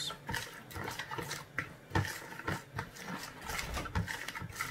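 A hand mixing a runny tandoori marinade of lemon juice, oil and ground spices in a plastic bowl: quick, irregular wet squelches and slaps, several a second.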